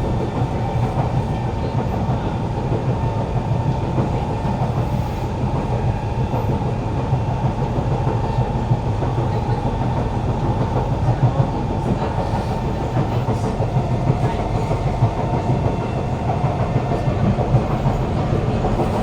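Kawasaki Heavy Industries C151 metro train heard from inside the carriage, running steadily between stations: continuous wheel-on-rail running noise with a low rumble and no rise or fall in pitch.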